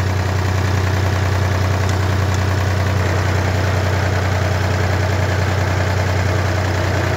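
David Brown 880 tractor's diesel engine idling steadily, freshly serviced and warming up just after starting.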